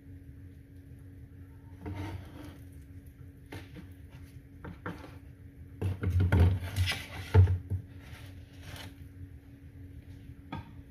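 A knife slicing through soft cinnamon-roll dough and knocking against a wooden cutting board: scattered taps and scrapes, with the heaviest thuds bunched about six to seven and a half seconds in. A steady low hum runs underneath.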